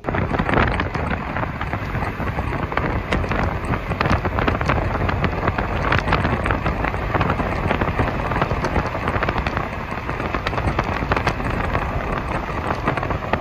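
Wind rushing and buffeting the microphone of a phone filming from a moving car, over the car's road noise, with constant crackling.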